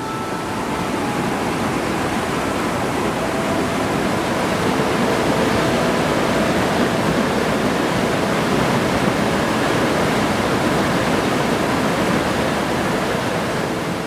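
Mountain stream and waterfall rushing: a steady, dense noise of falling water that swells up about a second in and eases slightly near the end.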